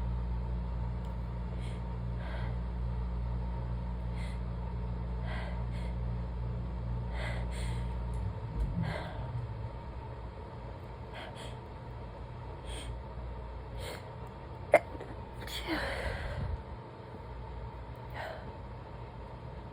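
A rapid run of stifled sneezes: about a dozen short, held-in bursts, roughly a second apart. There is one sharp click about fifteen seconds in.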